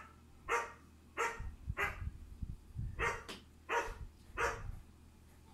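A dog barking repeatedly: about seven short barks, some in quick pairs.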